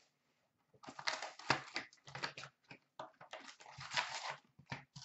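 Hands opening a trading card box and tearing open a card pack: irregular rustling and crinkling of the paper wrapper and cardboard, starting about a second in.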